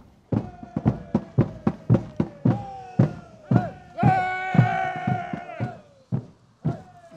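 Marching drums beating a steady march, about two to three strokes a second, with a long held high note over them.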